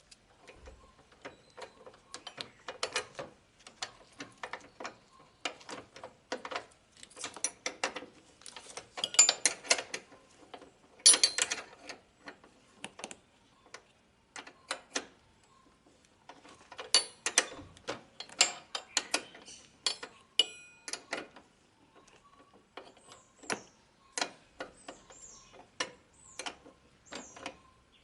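Ratchet wrench clicking in quick runs with short pauses while a car horn's mounting bolt is undone.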